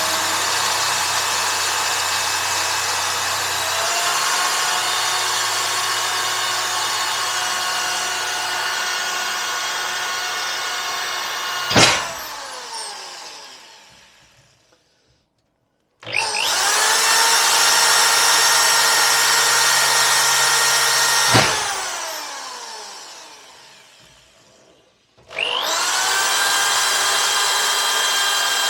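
Electric drill with a 1 mm bit, run three times. Each time the whine climbs in pitch as the motor spins up, holds steady, then ends with a click and a slowly falling whine as the motor winds down.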